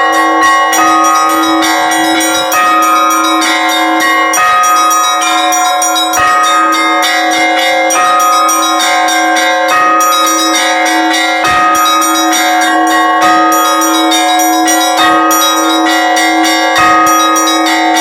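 Russian Orthodox church bells being rung: a rapid, rhythmic pattern of strikes on small high bells over the steady ringing of larger, deeper bells.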